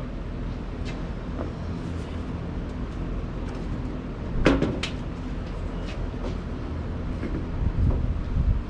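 Sheet-metal charcoal pizza oven being flipped upright on its newly fitted legs: scattered metal clanks and knocks, the loudest about halfway through, and low thuds near the end.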